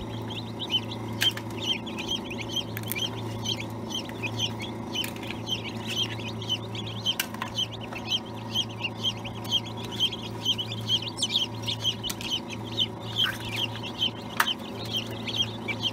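A crowd of newly hatched chicks peeping nonstop, many quick high chirps overlapping, over a steady low hum, with a few sharp clicks.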